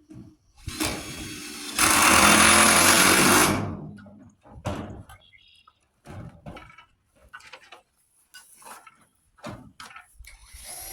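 A power tool runs in one loud burst of nearly two seconds, then in shorter separate bursts with scattered knocks.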